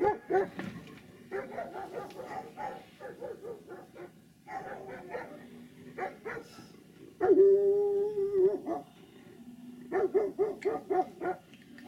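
A dog barking in quick runs of barks, with one long held cry about seven seconds in that lasts about a second and a half.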